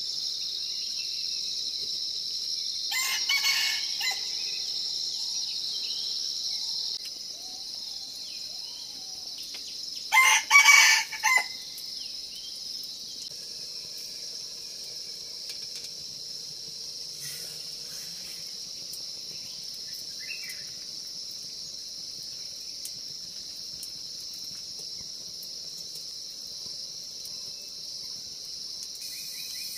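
A rooster crowing twice, a fainter crow about three seconds in and a louder one about ten seconds in, over a steady high-pitched chirring of insects.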